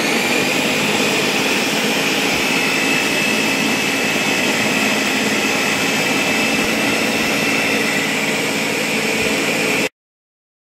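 Countertop blender running at full speed, pureeing raspberries with sugar: the motor's whine climbs as it spins up, then holds steady with a churning rush. It cuts off suddenly near the end.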